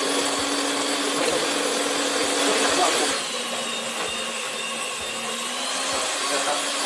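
Electric stand mixer running steadily, beating a cookie dough of butter, icing sugar, egg and flour. Its motor pitch dips slightly about three seconds in, then climbs back.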